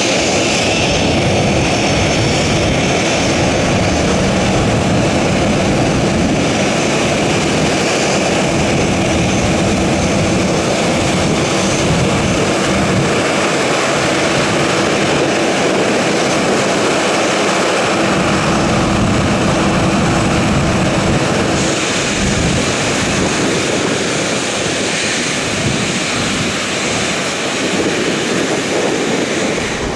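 Boeing 737-700's CFM56-7B jet engines running loud and steady, easing off a little over the last several seconds.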